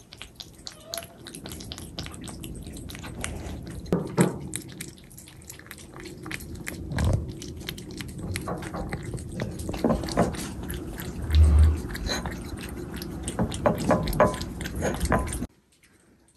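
Cats eating a wet treat from a plate up close: a steady run of small wet smacks, licks and chewing clicks, with a brief low bump partway through. It cuts off suddenly near the end.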